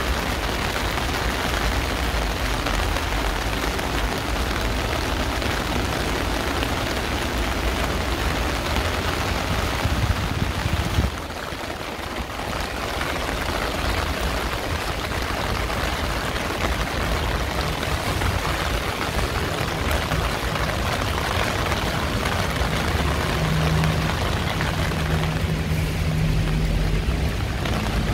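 Heavy rain pouring down on a city street, a dense steady hiss with traffic rumbling underneath. The rain noise dips suddenly about eleven seconds in, and a low steady hum joins for a few seconds near the end.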